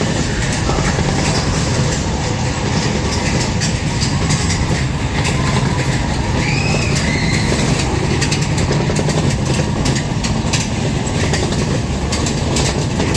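Space Mountain's coaster train running along its track: a steady loud rumble with a rapid clatter of wheels on the rails, and a short squeal about six and a half seconds in.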